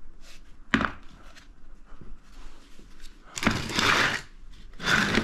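Handling noise from a plastic milk-crate cray pot: a sharp click about a second in, then two bursts of plastic scraping and rattling.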